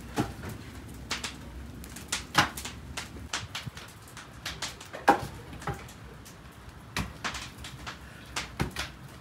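Split firewood logs tossed one by one into a clay tandoor, making irregular sharp wooden knocks and clacks; the loudest is about five seconds in.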